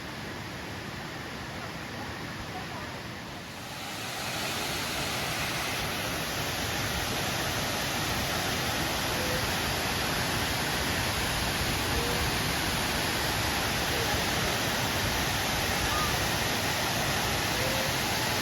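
Waterfall's rushing water: a steady hiss that grows louder and brighter about four seconds in.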